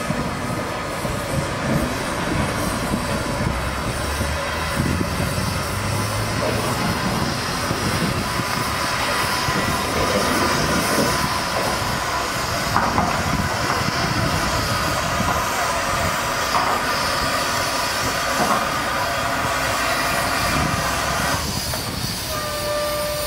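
4-8-2 steam locomotive moving slowly through a yard: a steady hiss of steam over the running of its wheels on the rails, with clicks at the rail joints. A faint steady tone comes in near the end.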